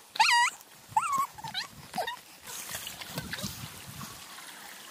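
Dog whining and yipping: several short, high, wavering calls in the first two seconds, the first the loudest.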